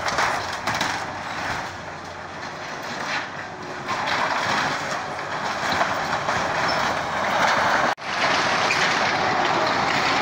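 Crawler bulldozer working a collapsed sheet-metal shed: a steady, rough clatter of the machine and its tracks with steel sheeting scraping and crumpling as it is pushed. There is a momentary gap about eight seconds in.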